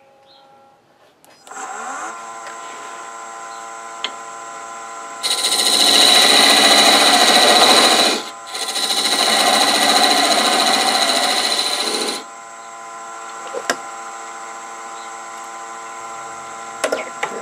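Nova wood lathe switched on about a second and a half in, its motor spinning up and then running steadily. A parting tool cuts into the spinning wood blank to form a tenon, a loud cutting noise lasting several seconds with a brief pause around the middle. The lathe then runs on without cutting.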